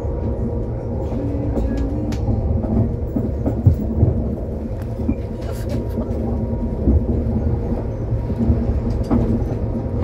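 Passenger train running, heard from inside the carriage: a steady low rumble with a faint hum above it and occasional light clicks and knocks.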